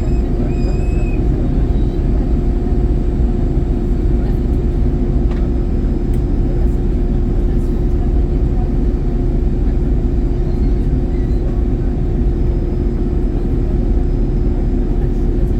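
Cabin noise inside an Airbus A321-111 in flight: a steady deep rumble of airflow and engines with a constant hum over it.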